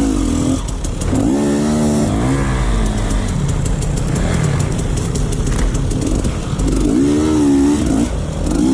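Off-road motorcycle engines revving as the bikes ride rough ground, the pitch wavering up and down with the throttle and swelling twice, over a steady low engine rumble.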